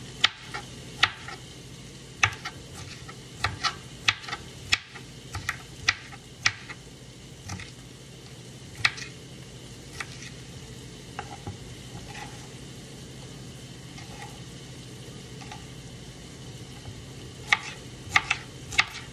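A dull knife chopping a green bell pepper on a cutting board: irregular sharp knocks, many over the first seven seconds, a few in the middle and another cluster near the end. Under it runs the steady sizzle of ground beef in a hot pan after the burner has been turned off.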